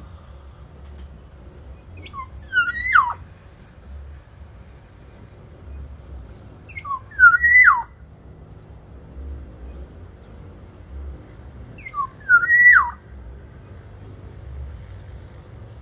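Black-naped oriole singing: three fluid, whistled phrases about five seconds apart, each about a second long, with notes sliding up and down in pitch.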